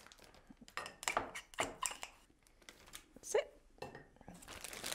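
A spatula scraping and tapping buttercream into a plastic piping bag, with short clicks and crinkling of the plastic bag as it is handled. A brief squeak about three seconds in.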